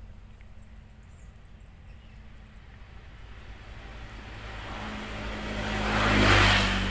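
A road vehicle passing close by: its noise builds over a few seconds, peaks near the end, then falls away, over a steady low traffic hum.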